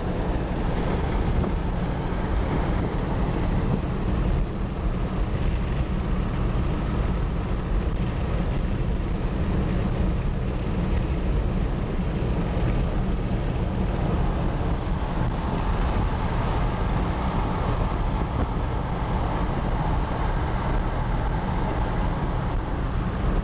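Jeep Wagoneer driving along the highway: a steady, unchanging low rumble of engine and road noise.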